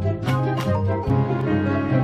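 Background music, with a few sharp strikes in the first half and a fuller, more sustained passage from about a second in.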